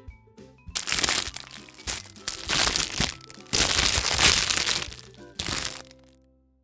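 Crinkling and crunching of a surprise-egg wrapper being opened, in several loud bursts over a few seconds.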